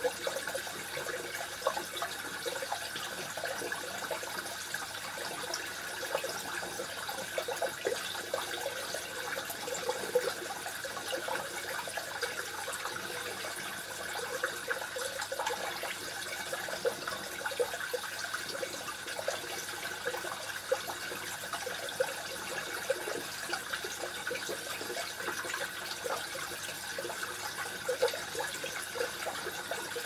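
Small rain waterfall falling steadily into a mini fish pond: a continuous splash and trickle of water with many small, irregular drips.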